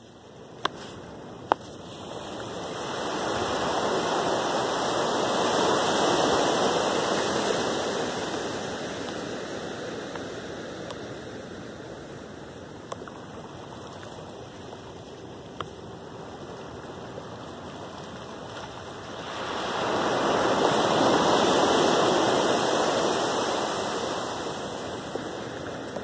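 Small ocean waves breaking and washing up a sandy beach. The surf swells up twice, once in the first third and again near the end, fading to a low hiss in between.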